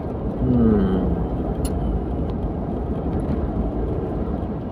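Steady low rumble of a car driving along a road, engine and tyre noise together. A voice gives a short falling hum about half a second in, and there is a single sharp click about a second and a half in.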